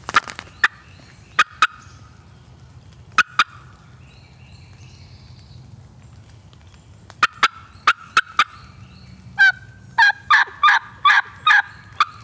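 Turkey call being run to strike a gobbler: short sharp notes, singly and in pairs, then a quick run of louder yelps in the last three seconds.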